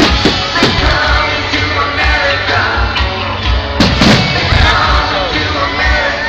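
Rock song with singing, played loud over a steady beat, with a few sharp bangs of fireworks going off: twice near the start and once, louder, about four seconds in.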